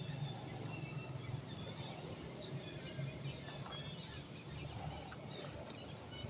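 Outdoor background sound: faint scattered bird chirps over a steady low hum.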